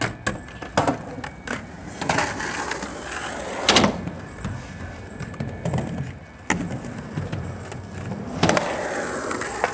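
Skateboard wheels rolling on concrete, with a series of sharp clacks as the board hits the ground; the loudest hit comes about four seconds in.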